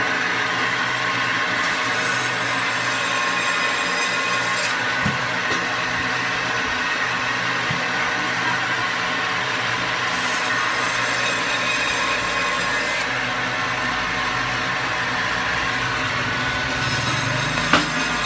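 Electric band saw running with a steady whine as it cuts steaks from a frozen grouper. A higher hiss comes in three times, and there is a single sharp knock near the end.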